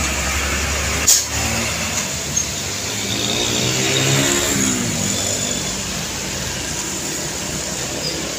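Heavy diesel trucks running past on the road. The engine note rises and falls around the middle, and there is a short, sharp burst of noise about a second in.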